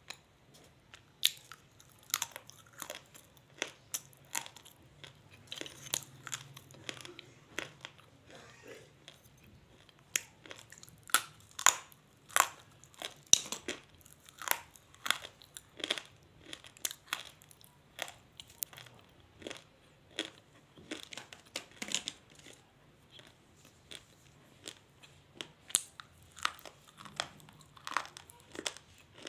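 Someone biting and chewing dry chunks of multani mitti (Fuller's earth clay): irregular sharp crunches, several a second in busy stretches, with brief lulls between bites.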